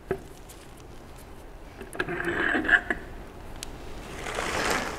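Torque converter being pulled by hand off an automatic transmission's input shaft: a couple of sharp metal clicks with scraping and handling noise, growing toward the end as the converter comes free and is set down.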